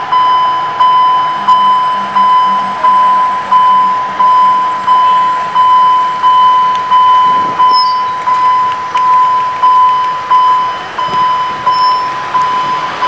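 Railway level-crossing warning bell ringing, a single ding repeated about one and a half times a second, each stroke fading before the next.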